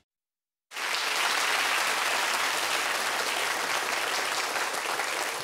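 Studio audience applauding, starting suddenly about a second in after a brief silence and holding steady.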